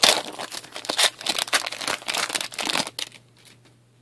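Foil-lined wrapper of a 2013-14 Upper Deck Team Canada hockey card pack being torn open and crinkled by hand, a dense run of crackles that stops about three seconds in.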